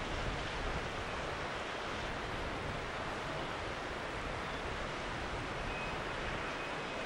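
A fast-flowing river rushing around a wildebeest herd crossing it, making an even, steady wash of water noise.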